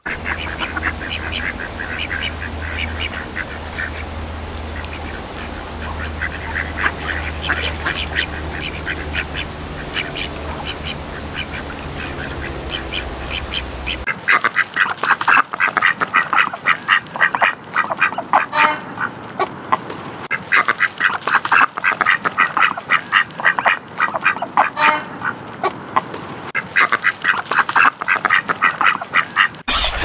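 A flock of ducks quacking and chattering in quick, overlapping calls, with a low rumble underneath. About halfway through the sound changes abruptly to louder, more separate quacks without the rumble, as a different recording begins.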